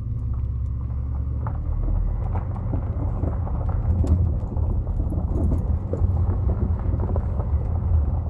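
Vehicle driving over rough ground: a steady low rumble with many small rattles and knocks.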